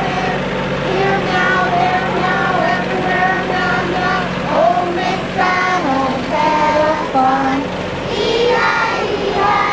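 A group of young children singing together in held, sing-song notes, over a steady low vehicle hum.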